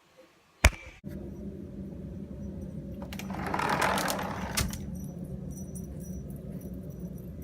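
Keys jangling, with sharp clicks, over a steady low hum.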